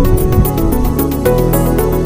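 Electronic background music with a steady beat and a sustained bass line.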